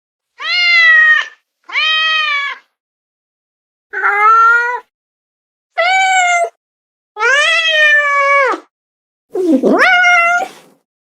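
Domestic cat meowing six times, each meow about a second long with silence between them. The last meow begins with a low, rough sweep before rising into its pitch.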